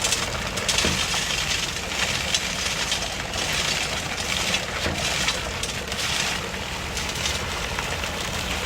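Heavy diesel truck engine running steadily, with a rushing hiss that swells and fades every second or so.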